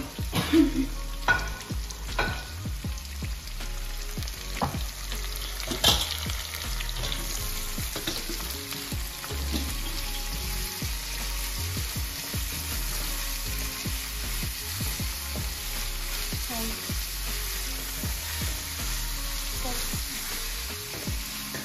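Masala for masala dosa frying in a pan of hot oil, with a steady sizzle and stirring. A few sharp knocks of a utensil against the pan in the first six seconds, the loudest about six seconds in.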